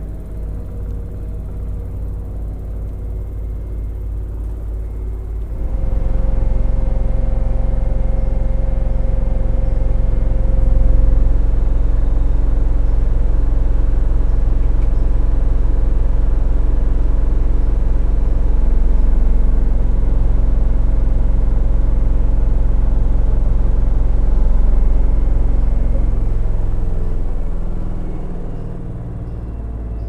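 LG FHT1208SWL 8 kg inverter direct-drive front-load washing machine on its spin cycle: a steady low hum of the drum spinning at speed, with a fine pulsing. It jumps louder about six seconds in and eases off near the end as the spin slows.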